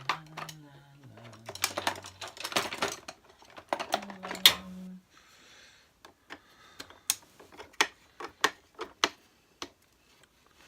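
Hard plastic clicks, taps and rattles of a plastic vacuum cleaner's handle and housing being unscrewed and pulled apart by hand. A low hum steps down in pitch over the first couple of seconds and comes back briefly about four seconds in.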